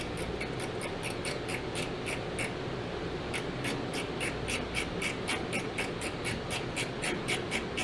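Hand screwdriver with a PH1 Phillips bit turning a small screw, giving a fast run of regular clicks, about four a second, that stops briefly near the middle and starts again.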